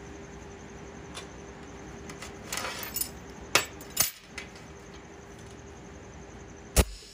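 Steel horseshoes, chain links and a ring clinking and rattling against a steel welding table as the horseshoe puzzle is handled, in a few scattered clicks and a short rattle. One sharp metallic knock near the end is the loudest.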